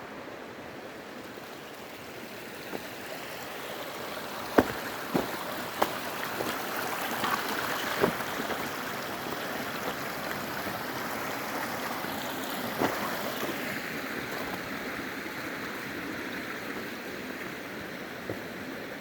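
Snowmelt mountain creek rushing steadily over its bed, growing louder about four seconds in and staying so. A few sharp clicks or snaps stand out over it, the loudest about four and a half seconds in and another near thirteen seconds.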